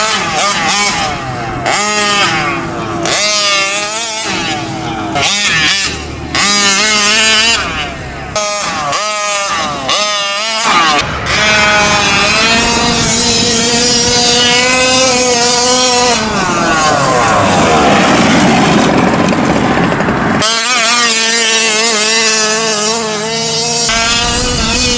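Taylor RC 46 GT big-bore two-stroke engine in a fifth-scale RC truck, revving up and down in quick throttle blips for the first half, then held at high revs for a few seconds before its pitch sweeps down, and running steadily again near the end. Super loud.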